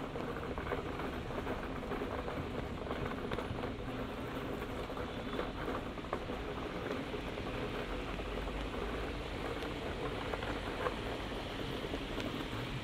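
Steady rain falling and pattering on hard surfaces, with a low rumble of traffic on the wet road beneath it.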